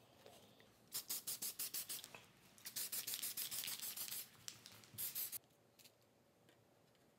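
Aerosol spray-paint can spraying: a quick run of short spurts about a second in, then a steady hiss for about a second and a half, and one last short spray near the end.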